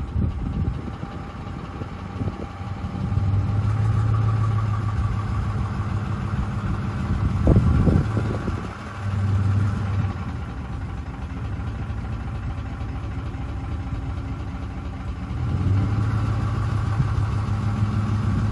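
Ford 5.4L 3-valve Triton V8 running hot as the truck pulls away gently at low revs, its drone swelling with each light acceleration, three times. The noise under acceleration is phaser oscillation: the cam phasers jump back and forth uncontrolled because low oil pressure and volume from blown timing-chain tensioners leaves them unregulated. A brief clatter about halfway through.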